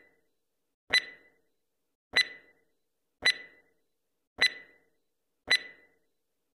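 Countdown timer sound effect: a short, sharp tick with a brief ring after it, repeated about once a second.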